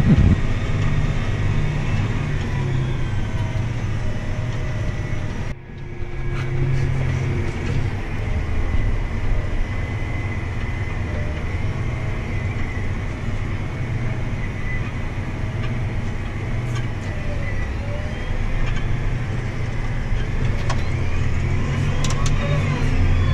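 Farm tractor engine running steadily under load, heard from inside the cab as it tows a full grain wagon. The level drops briefly about five and a half seconds in.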